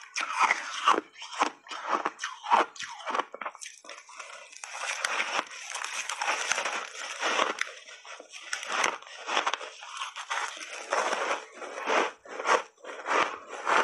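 Refrozen ice chunks dusted with matcha and milk powder being bitten and chewed close to a clip-on microphone. Sharp crunches come in quick, irregular succession, with a longer stretch of continuous grinding chews from about five to eight seconds in.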